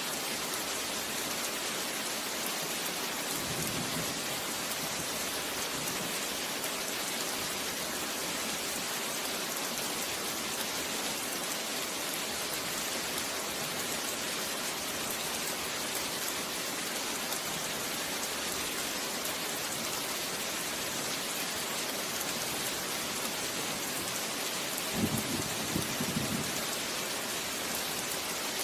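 Steady, dense rainfall, an even hiss of drops falling on surfaces. Near the end comes a brief low rumble lasting about a second and a half.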